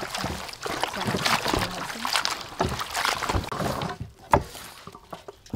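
Leafy greens being swished and rinsed in a stainless steel basin of water, with splashing and sloshing. It goes quieter near the end, with one sharp knock about four seconds in.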